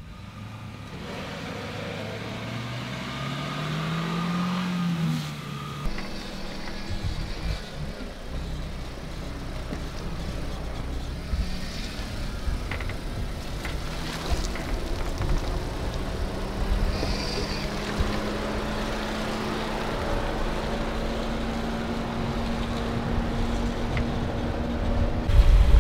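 Mahindra Thar 4x4's engine revving up a few seconds in, then running steadily under load as it crawls over rocks, with a few short knocks.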